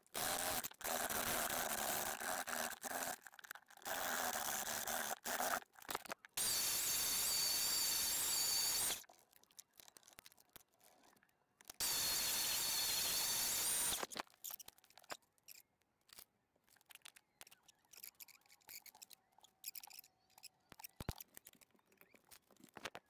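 Adhesive tape pulled off a roll in four long strips to wrap a steel blade, the two longest strips with a wavering high squeal, followed by quieter handling and faint clicks.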